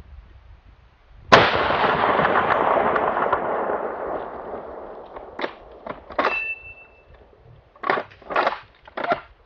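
A single .375 H&H rifle shot about a second in, its echo rolling away over about three seconds, followed by several short knocks and clicks, one with a brief ring.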